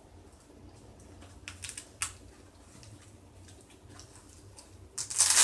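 Handling of newly unboxed tactical gear: soft rustles and light clicks, a sharp click about two seconds in, then a loud half-second rip or crinkle near the end.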